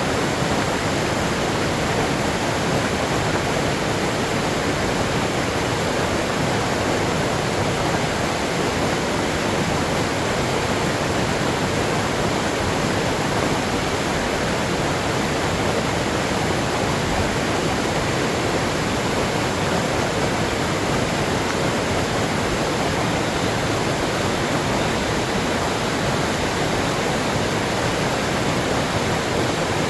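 Waterfall: water pouring and rushing in an even, unbroken sound that doesn't change.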